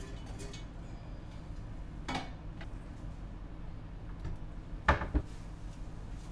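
Kitchen drawer and overhead cupboard being opened and rummaged, with a few sharp knocks and clinks of dishware: one about two seconds in and the loudest pair about five seconds in, over a low steady hum.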